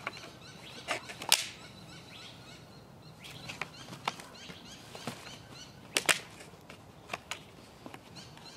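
Rubber bands being stretched and snapped around a foam-board canard wing and fuselage: a scattering of sharp snaps and clicks, loudest about a second and a half in and again about six seconds in. Faint bird chirps in the background.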